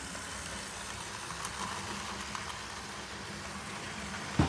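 Airfix Royal Scot OO-gauge model locomotive running along the track pulling a train of coaches, a steady hum from its motor and gearing. A single sharp thump comes near the end.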